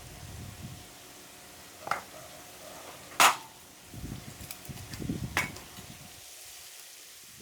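Three sharp knocks at uneven intervals, the middle one loudest, with low thuds between the second and third over a faint steady hum.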